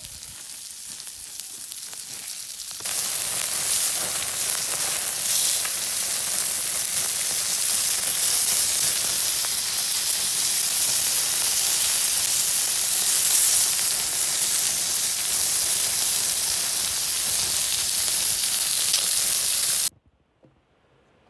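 Pork sizzling on a hot stone over a wood fire, a steady hiss. It grows louder over the first few seconds, jumps up about three seconds in, and cuts off suddenly near the end.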